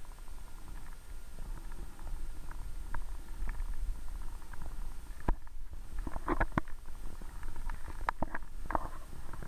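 Muffled underwater sound picked up through a submerged camera: a steady low rumble of water moving around the camera, with scattered sharp clicks and pops that come in two quick clusters in the second half.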